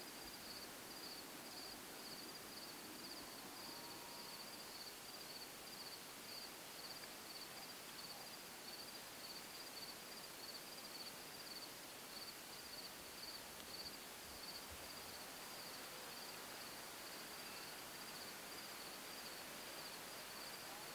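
Crickets chirping in a steady, high, even pulse, about two chirps a second, over a faint outdoor hiss.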